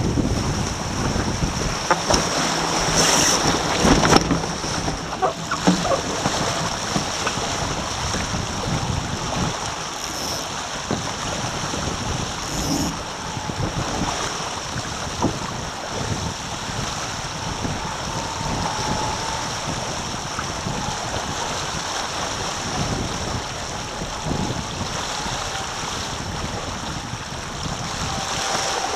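Taipan catamaran sailing at about 9 to 10 knots: steady rush of water past the hulls, with wind buffeting the microphone. A few knocks come in the first few seconds.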